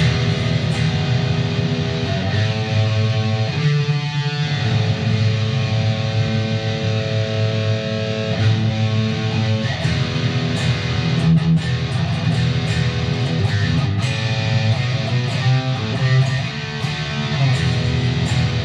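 Harley Benton Fusion II electric guitar played continuously on its bridge Roswell humbucker through the distorted yellow channel of a Mesa/Boogie JP-2C amp into a 4x12 cabinet loaded with Celestion Vintage 30 speakers.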